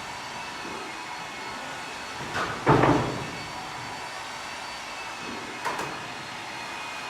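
Knocks over a steady background hum: a loud thump about two and a half seconds in, and a lighter knock near six seconds.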